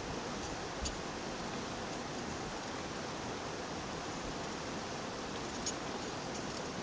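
Steady rush of flowing water at a spring, with a couple of faint clicks about a second in and again near the end.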